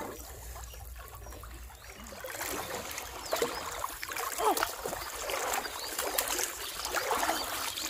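Pond water sloshing and splashing as a person wades through it, with a hooked fish thrashing at the surface; the splashing picks up about two seconds in and stays busy and irregular.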